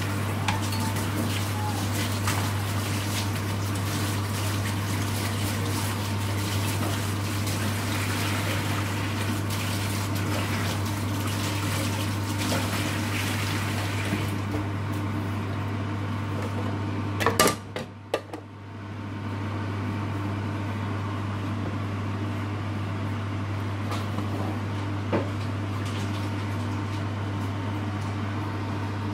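Steady low hum with an even hiss from a lit gas hob under an iron tawa, broken by a few sharp knocks about seventeen seconds in.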